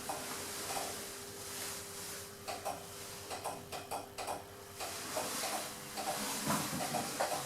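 A standard passenger lift in a shop running: a steady hum with scattered light clicks and knocks, the hum stopping about six and a half seconds in.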